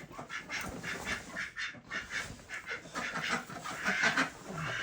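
Chickens clucking, many short calls in quick succession, loudest about four seconds in.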